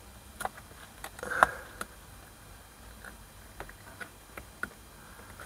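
Scattered light clicks and taps of hands working the plastic rain-sensor bracket and mirror housing at the top of the windscreen, with one sharper click about a second and a half in.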